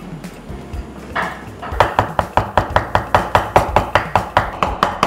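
Chef's knife mincing beef rib meat on a wooden cutting board: after quieter knife work, rapid, even chopping strokes start about two seconds in, about four a second.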